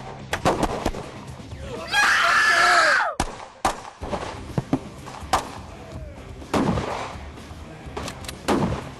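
Film gunfire: a string of sharp shotgun blasts, one at the start and more spaced a second or two apart in the second half. A loud scream of about a second comes about two seconds in.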